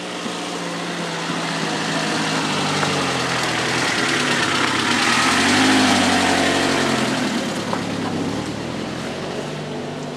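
A motor engine passing by, growing louder to a peak about six seconds in and then fading away.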